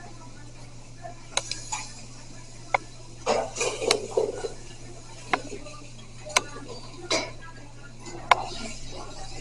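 Kitchen clatter: metal pans and utensils knocking and clinking in sharp, scattered strikes, with a denser burst of clatter about three to four and a half seconds in, over a steady low hum.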